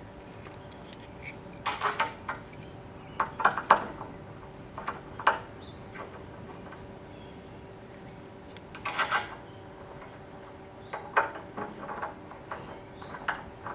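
Metal hinge parts clicking and clinking as they are handled and fitted to a glass gate hinge, in short scattered clusters of clatter with quiet gaps between.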